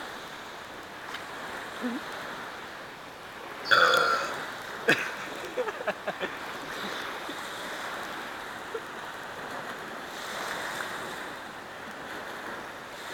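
A person burps loudly once, about four seconds in, for around half a second. A few short, sharp clicks follow, over a steady background hiss.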